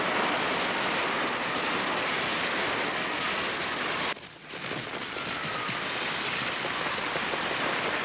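Large campfire burning, a dense crackling and rushing noise, which breaks off abruptly for about half a second about four seconds in and then resumes.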